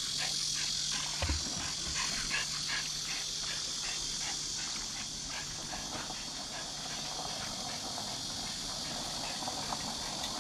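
Boston terrier panting quickly and steadily, about three breaths a second, winded and hot after swimming.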